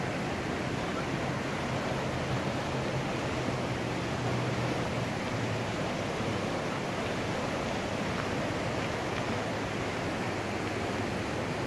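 A river in flood running fast and turbulent, a steady, even rush of water with no let-up.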